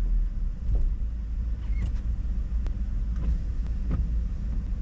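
A car driving slowly, heard as a steady low rumble of engine and road noise, with a few scattered light ticks.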